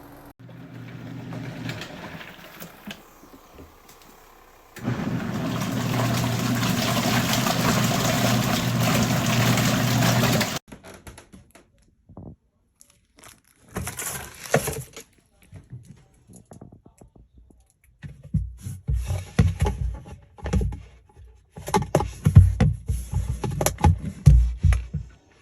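Portable twin-tub washing machine running, with a steady motor hum and water churning for about six seconds that cuts off suddenly, followed by a run of irregular knocks and clatters.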